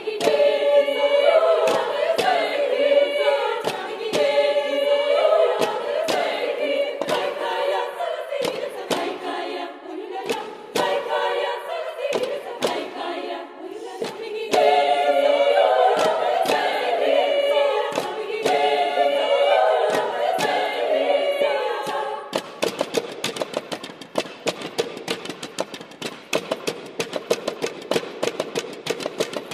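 Women's choir singing a cappella in a reverberant church, several voice parts moving together. About seven seconds from the end the sustained singing gives way to a rapid patter of sharp clicks and taps from the singers over quieter sung tones.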